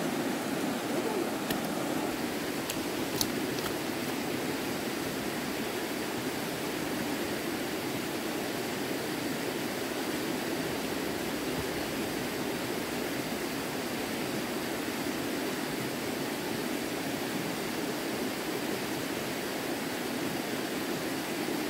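Running stream water rushing steadily, with a few faint clicks in the first few seconds.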